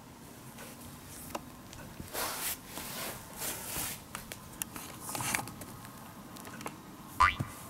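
A cat's body shifting and rubbing on a tatami mat, rustling in three short bursts, with a brief loud sound that slides quickly in pitch near the end.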